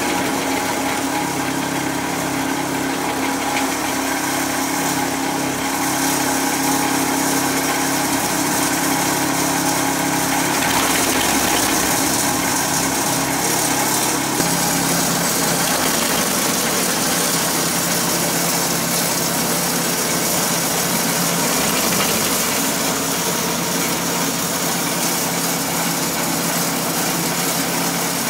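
Petrol engine of a Remet RS80 branch logger running steadily, its note shifting twice near the middle.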